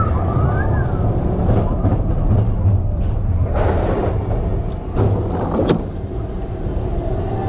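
Expedition Everest roller coaster train rolling along its track with a steady low rumble, with a louder rush of noise about halfway through and another about a second later.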